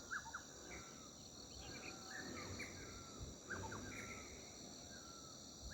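Small birds calling in repeated short chirps, over a steady high-pitched drone of insects such as crickets.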